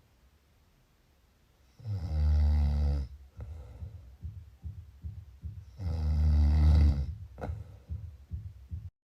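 Snoring: two loud, rattly snores about four seconds apart, each lasting just over a second, each followed by a quieter fluttering breath. The first snore comes about two seconds in, after a quiet stretch.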